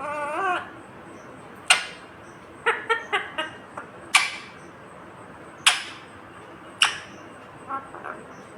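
Indian ringneck parakeet calling: a short voice-like phrase at the start, then single sharp, shrill squawks every second or two with a quick run of chirps between them.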